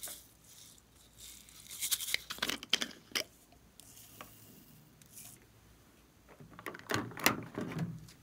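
Small sprinkles shaken out of a plastic bottle and pattering into a glass baking dish, in two bursts of quick rattling ticks, a second or so in and again near the end.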